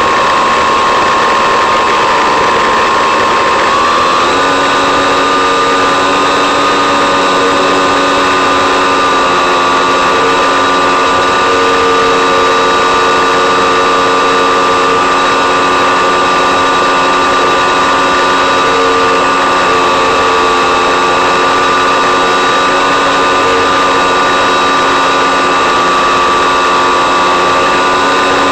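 Electric motor and propeller of an FPV model plane heard from the onboard camera, a steady whine with several tones that steps up slightly in pitch about four seconds in and then holds. The motor is running at low power, drawing only about 3 amps while the plane climbs in a thermal.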